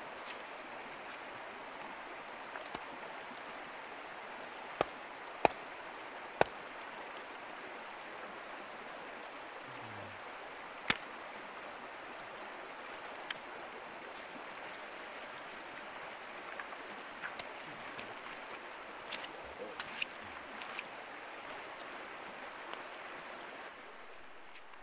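Steady rush of a stream flowing over stones, with a steady high-pitched whine above it. Sharp clicks stand out about five, five and a half, six and a half and eleven seconds in, with a few fainter ticks later.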